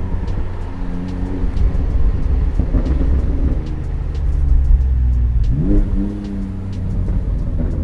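Exhaust of a BMW M4 Competition's twin-turbo straight-six, an OPF-equipped car with an aftermarket DD Customs exhaust, running steadily under way. About five and a half seconds in it revs up with a quick rise in pitch.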